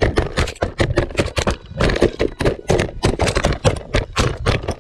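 Rapid, irregular knocking and clattering of the small hobby robot rover's plastic-box body and chassis, jolted hard as it tips over on rough ground, close to its onboard camera microphone.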